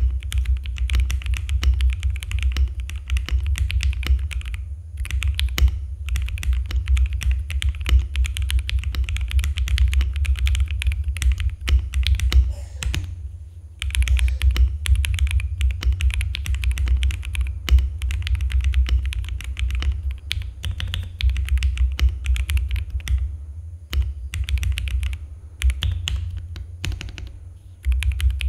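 Typing test on a CIY Gas 67 gasket-mount mechanical keyboard with a polycarbonate plate: a fast, dense stream of keystroke clacks, stopping briefly a few times.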